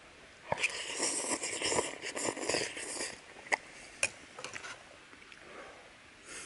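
A man slurping noodles off a long-handled spoon for about two and a half seconds, then two sharp clinks of the spoon against a metal camp mug.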